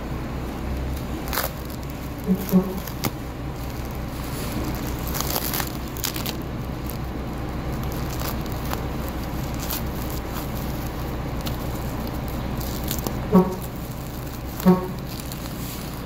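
Plastic packaging and bubble wrap crinkling and rustling as a parcel is unwrapped by hand, with scattered crackles over a steady background hiss. Two brief louder blips come near the end.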